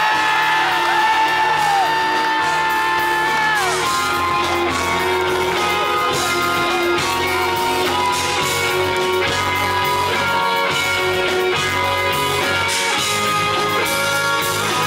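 Live rock band with electric guitars, bass and drums: a long high note wavers in pitch for about the first four seconds, then the guitars play melodic lead lines over the steady band.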